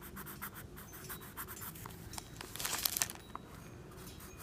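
Pencil or crayon scratching on paper in quick short strokes as a child draws and colours, with a louder rustle of the paper about two and a half seconds in.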